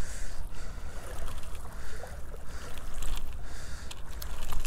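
Wind buffeting the microphone with a steady low rumble, over small waves washing at the shoreline, with a few light clicks near the end.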